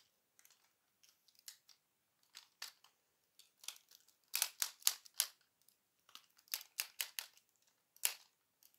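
Parts of a G1 Transformers Sixshot toy clicking and knocking as they are rotated and repositioned by hand. Scattered sharp clicks, with a quick run of several about halfway through and another near the end.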